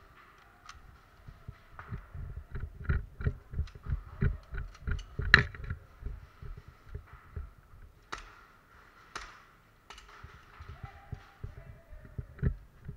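Quick footsteps on a concrete floor with gear thumping, in an uneven run of low thuds, broken by a few sharp cracks, the loudest about five seconds in. A faint steady high hum sits underneath.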